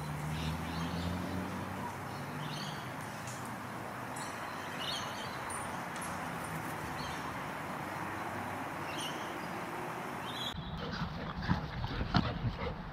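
Dog sounds over a steady outdoor background, with birds chirping now and then. About ten seconds in the sound changes abruptly to close, uneven knocks and rustles near the microphone.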